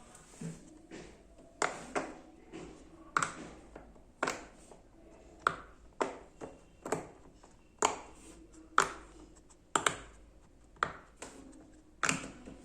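Silicone pop-it fidget toy bubbles being pressed one after another, each giving a sharp pop, at an uneven pace of roughly one or two a second.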